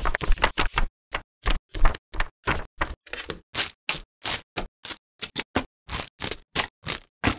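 Quick, evenly spaced bursts of model-kit unboxing sounds, about four a second: a paper instruction booklet being leafed through, then plastic bags of parts runners crinkling as they are handled.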